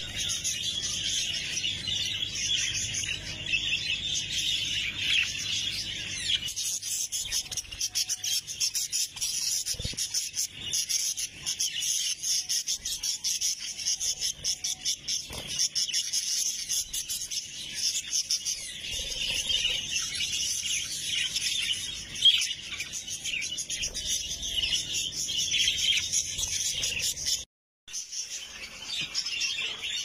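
A flock of budgerigars chattering and warbling, a dense, continuous stream of high chirps. It drops out for a moment near the end.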